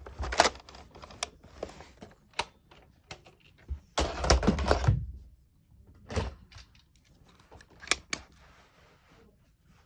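Foam darts being loaded by hand into a 10-dart Nerf magazine: irregular plastic clicks and scrapes, with a longer scraping rustle about four seconds in.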